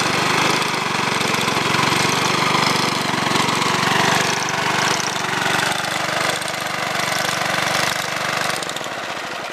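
A 2-horsepower Briggs & Stratton single-cylinder engine on a 1952 Sears Roebuck reel mower runs steadily, driving the reel, which stays engaged because the belt is too tight. About eight and a half seconds in, the engine is shut off and winds down.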